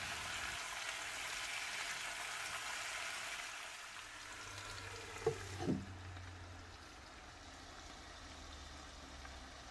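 Sliced potatoes sizzling in oil in a cast-iron pan. A couple of light knocks come about five seconds in as a glass lid is set on the pan, and after that the sizzle is quieter and muffled under the lid.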